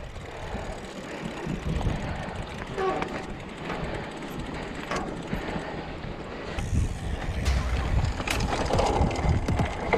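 Mountain bike riding over a rough, rocky trail: a rumbling mix of tyre noise and wind buffeting the microphone, with scattered sharp knocks and rattles from the bike, getting louder about two-thirds of the way through.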